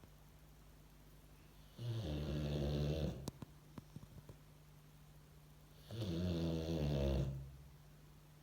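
Boxer dog snoring in its sleep: two snores about four seconds apart, each lasting about a second and a half. A few faint clicks follow just after the first snore.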